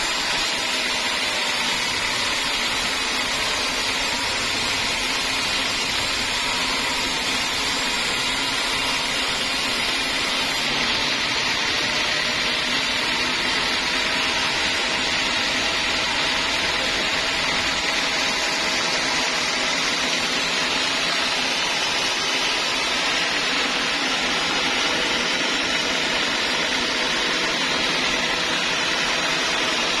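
Band sawmill running steadily as its blade cuts lengthwise through an old teak log, a continuous even hiss.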